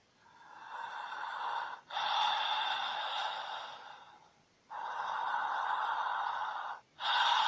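Spooky sound effect played from a phone sound-effects app: four long, breath-like hisses in a row, each one to two seconds, with short gaps between.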